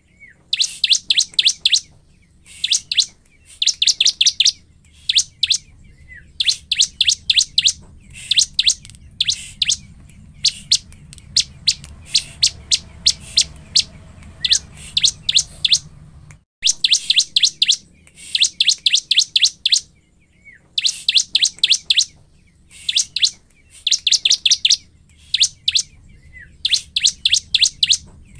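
Bar-winged prinia (ciblek) calling in full song: bursts of rapid, sharp, high chattering notes, a burst every second or two.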